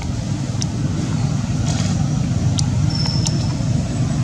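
Steady low rumble of a motor vehicle engine running, with a few faint high clicks over it.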